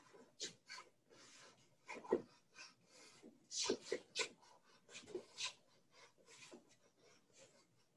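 Faint, irregular scuffs and rubs of feet shuffling and pivoting on a hard floor during shadowboxing footwork, with the loudest scrapes about two seconds in and around four seconds in.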